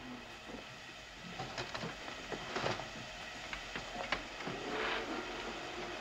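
Canister vacuum cleaner running as it is pushed over the floor, with irregular knocks and scrapes.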